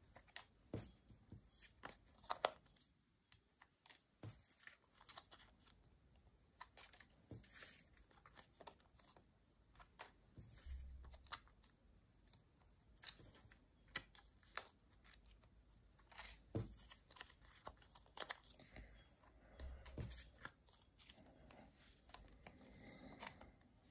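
Faint, scattered rustles and small clicks of 125–130 gsm Majestic paper pieces being folded along their centre line and creased between the fingers.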